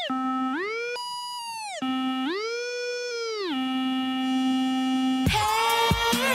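Breakdown in an electronic dance track: a lone synth tone slides up an octave, holds, and slides back down, twice, then sits on the low note before the full beat comes back in near the end.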